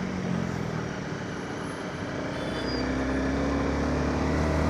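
Motorcycle engine running under road noise while riding. The engine note drops slightly at first, then grows steadily louder from about halfway through.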